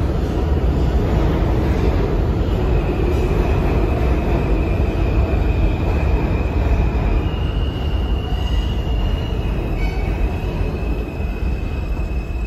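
A New York City subway train rumbling heavily through the station. About two seconds in, a high steady metallic squeal joins, and a second, higher squeal starts a few seconds later, as the train slows on the curve.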